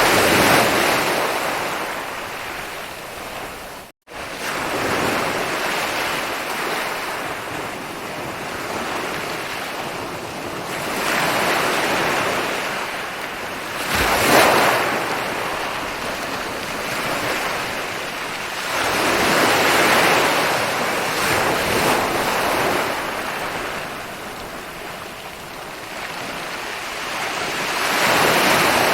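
Ocean waves rolling in and breaking on a beach: a steady rush of surf that swells and ebbs every several seconds, with one sharper crash about halfway through. The sound drops out for a split second about four seconds in.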